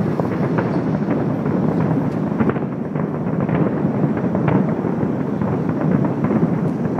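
Fireworks from a large display bursting many at a time: a steady, dense rumble of overlapping bursts with many sharp crackles through it and no pauses.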